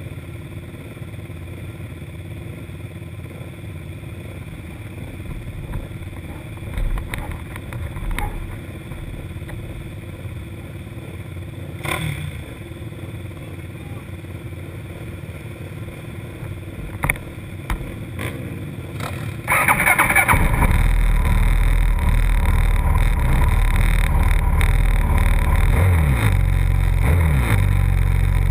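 Quad (ATV) engine idling on a motocross start line, with a few short knocks. About twenty seconds in it jumps suddenly to loud, high revs and is held there: the rev-up on the line before the start.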